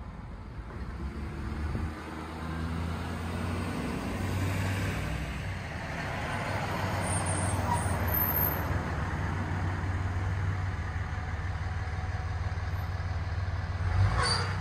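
A motor vehicle's engine running with a steady low hum that grows louder over the first few seconds, then cuts off suddenly near the end.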